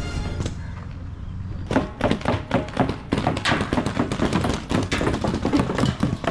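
A rapid, irregular run of sharp knocks and taps, beginning a little under two seconds in and continuing densely.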